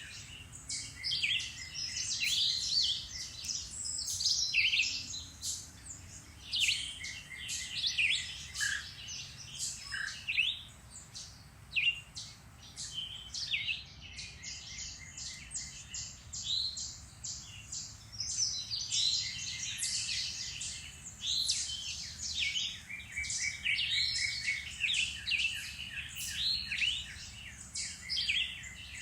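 Several songbirds singing and calling at once, a dense chorus of overlapping chirps, whistles and quick trills, busiest in the first few seconds and again over the last ten.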